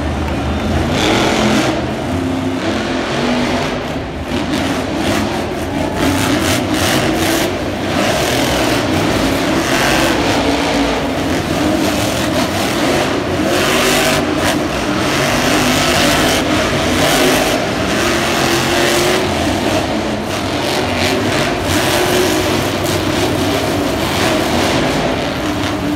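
Several monster trucks' supercharged V8 engines running and revving at once, loud and continuous, the pitch rising and falling as the trucks drive around the dirt floor.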